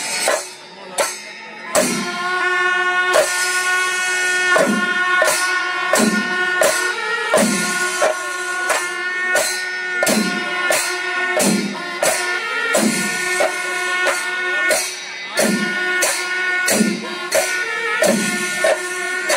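Kerala chenda melam: massed chenda drums beaten with sticks, with heavy strokes about every second and a half, under clashing ilathalam hand cymbals. Kombu brass horns sound held notes over the top.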